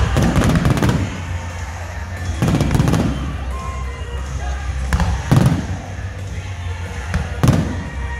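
Aerial firework shells bursting in a run of loud bangs and crackles, about one every second or two, with music playing underneath.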